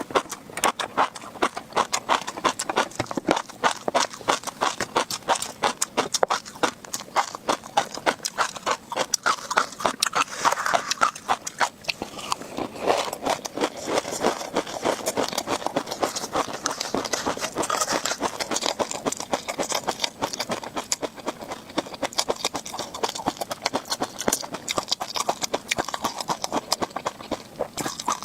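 Close-miked chewing of tobiko (flying fish roe), the small eggs popping and crunching in a fast, dense run of sharp clicks.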